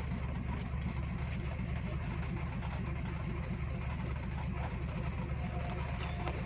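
A large engine idling steadily with a low, even hum.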